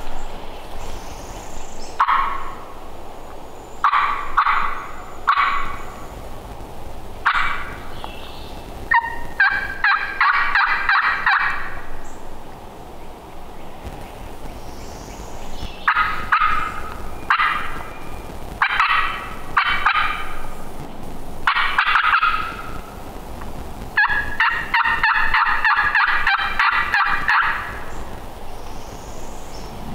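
A hunter's hen turkey call giving loud series of short yelping notes, with two longer, rapid runs of calling, sent out to draw in gobblers.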